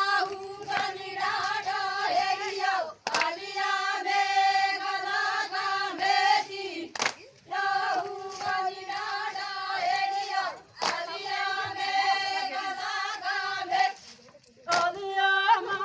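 Traditional Adivasi folk song sung unaccompanied, the voices holding long, steady notes. It comes in four phrases of about four seconds each, with a short break between them.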